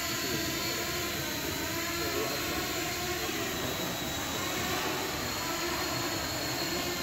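Small quadcopter drone's electric motors and propellers buzzing steadily, the pitch wavering as it hovers and manoeuvres.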